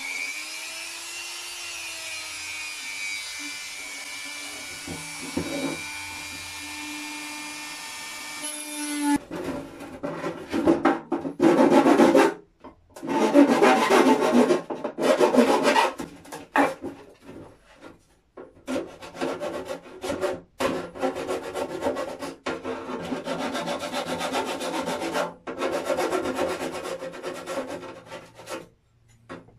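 A flexible-shaft rotary tool spins up and runs with a steady whine for about nine seconds, then stops. Irregular rasping, scraping strokes by hand on the clear plastic lid follow, working the cutout for a small hygrometer.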